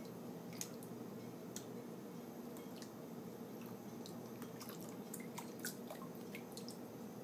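Light drips and small splashes of water as kittens paw at minnows in a shallow plastic tub: scattered faint plinks that come thicker in the second half, over a steady low hum.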